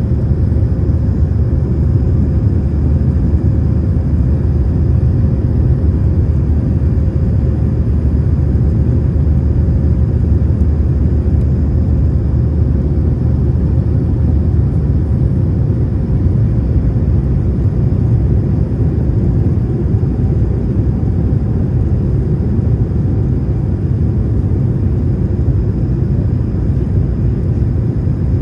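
Airliner cabin noise in flight, heard at a window seat over the wing: a steady low rumble of engines and airflow, with a faint steady hum above it.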